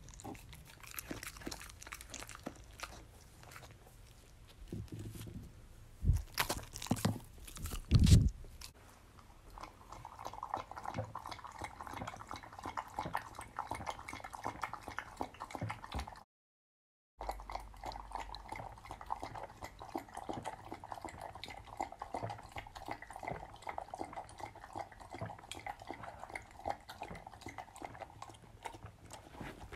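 Samoyed crunching a fry, with a few heavy thumps about six to eight seconds in, then lapping a drink from a glass with its tongue in a fast, steady run of wet licks. The sound drops out briefly near the middle.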